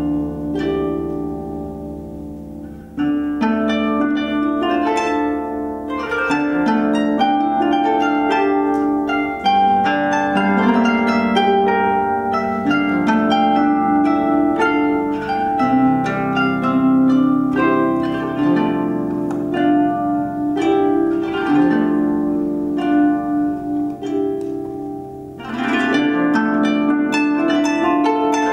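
Harp being played, a steady stream of plucked notes, thinning out for a moment about three seconds in and again near the end before the playing picks up again.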